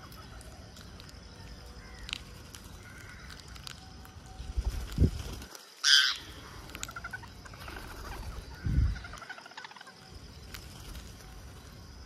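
Rose-ringed parakeets feeding, with scattered small clicks and one loud, short, harsh squawk about six seconds in. Two low thumps come a little before and a little after the squawk.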